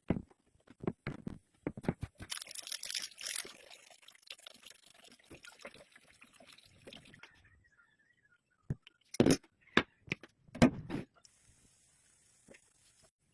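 Kitchen food-preparation sounds: light clicks and knocks, a stretch of liquid pouring starting about two seconds in, then three sharp knocks and a brief high hiss near the end.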